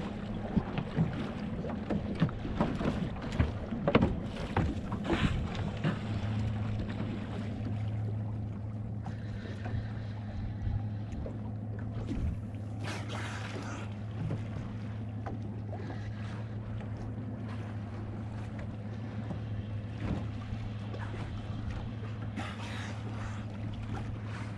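Boat's outboard engine idling with a steady low hum, under wind on the microphone. Short knocks and splashes of water against the hull come most often in the first few seconds.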